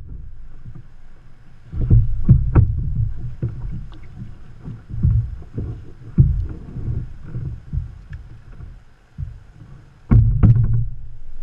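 Kayak on the water, heard through a camera mounted on its plastic hull: an uneven low rumble with irregular thuds and knocks, the loudest about two seconds in and again near the end.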